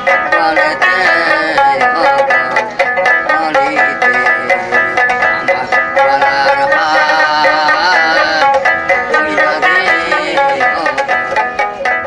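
Background instrumental music with a quick, even beat.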